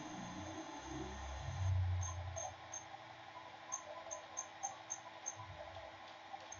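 Lathe running between turning passes: a steady motor hum with a low rumble over the first two seconds. Short, evenly spaced high chirps come after that, several a second.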